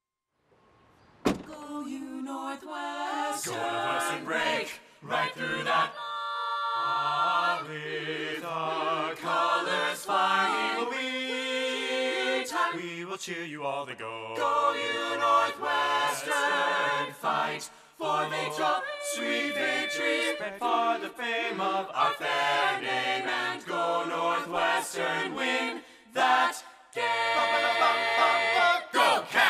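Choir singing, several voices moving together; it starts suddenly about a second in after a short silence.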